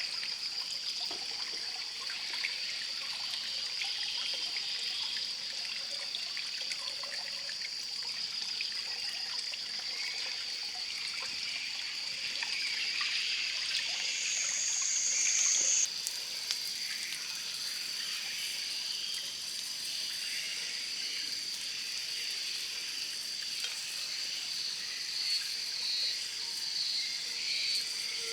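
Water trickling, under a steady high-pitched drone. A second, higher tone joins about halfway through and cuts off suddenly a couple of seconds later.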